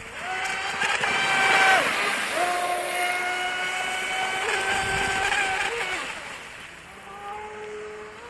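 Radio-controlled racing speedboat's motor whining at high revs, its pitch dropping sharply about two seconds in and again about six seconds in as the throttle is eased, then fading as the boat runs away.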